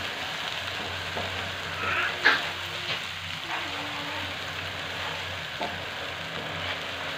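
Onion and green chilli paste with ground spices sizzling in oil in a nonstick pan while a wooden spatula stirs and scrapes it, frying the masala base. One louder knock of the spatula on the pan comes about two seconds in.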